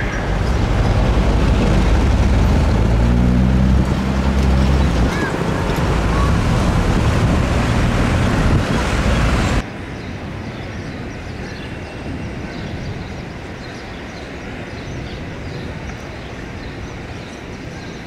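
Street traffic with a motor vehicle's engine running close by, its pitch rising briefly about three seconds in. About ten seconds in the sound drops suddenly to a quieter, steady traffic hum.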